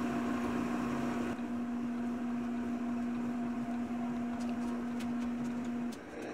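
Metal shaper running, its 60-degree carbide tool cutting a dovetail in steel: a steady machine hum with a fainter higher tone under it, which cuts off near the end.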